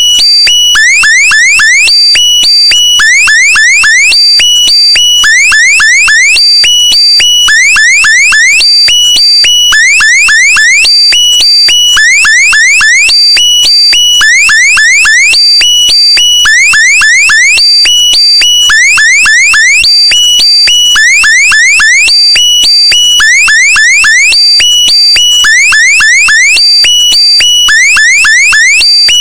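Loud electronic alarm-like sound effect: groups of quick rising chirps over steady high beeping tones, looping about once a second.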